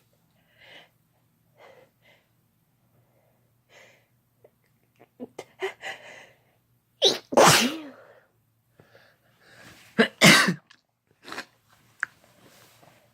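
Two loud sneezes about three seconds apart, the first voiced, each led in by quick catching breaths, with soft breathing before them.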